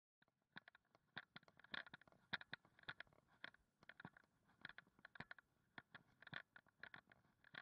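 Faint footsteps crunching on a gravel road at a walking pace, about one and a half steps a second.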